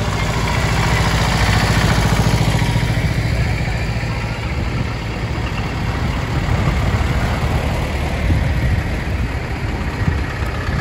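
Diesel engines of decorated tractors and an old Mercedes Unimog running as they drive slowly past one after another, a steady engine drone that is loudest about two seconds in.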